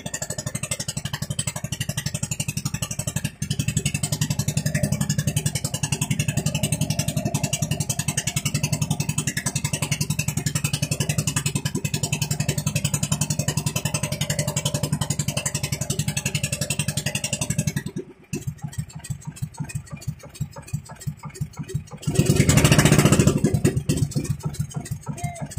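A small engine running steadily with a fast, even firing beat, then dropping to a slower, sparser beat about 18 seconds in. A brief loud rush of noise comes about 22 seconds in.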